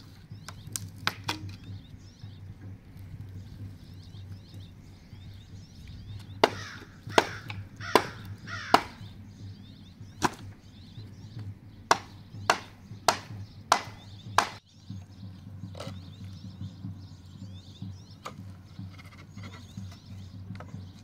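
Hatchet blows on the boards of a wooden pallet as it is hacked and pried apart for firewood: sharp, irregular wooden knocks, a few at first and then a run of about a dozen in the middle, over a low steady hum.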